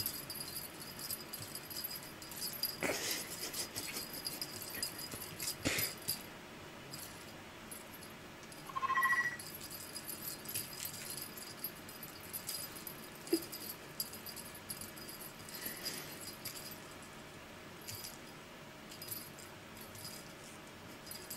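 A small cat toy on a wand string jingling and rattling in faint, scattered bursts as a kitten bats at it and chases it. A short steady tone sounds about nine seconds in.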